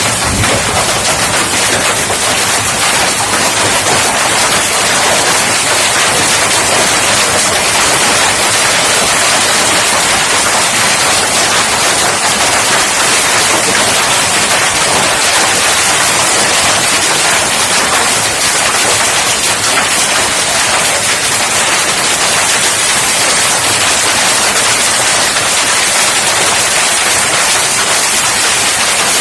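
Heavy rain mixed with hail pelting down, a loud, unbroken clatter of countless small impacts.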